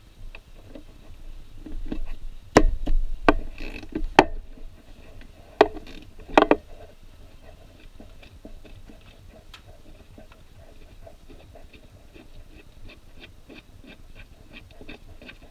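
A few sharp metal knocks and clanks as a socket wrench is fitted and worked on a starter mounting bolt. Then a ratchet wrench clicks steadily, about three or four clicks a second, as the bolt is turned out.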